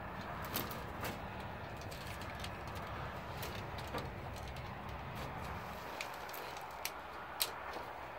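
Irregular knocks and clicks of rubber boots stepping on wooden boards and of the jumper-cable clamps clinking, a few sharp ones, the loudest near the end, over a steady low background noise.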